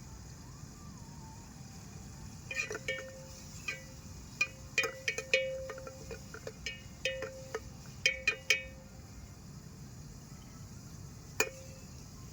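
Metal spoon clinking and scraping against a metal cooking pot, stirring frying onion, tomato and chilli. The ringing clinks come in a quick run through the middle, with one more near the end.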